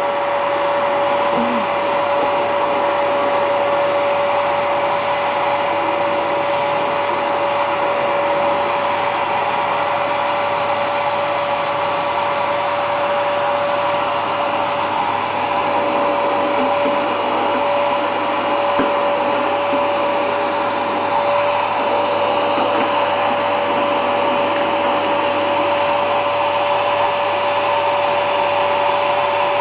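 Vacuum cleaner running steadily: the rush of its motor and airflow with a constant whine, unchanging throughout.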